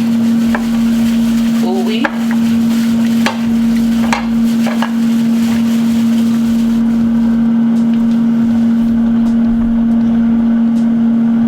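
A steady hum from a running kitchen appliance over the hiss of food frying, with several sharp clicks and taps in the first five seconds.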